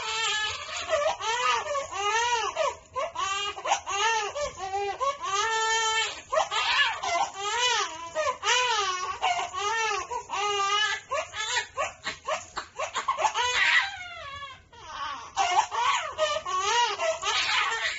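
Young infant crying: a run of short, wavering wails that rise and fall in pitch, one after another, with a brief lull about two thirds of the way through.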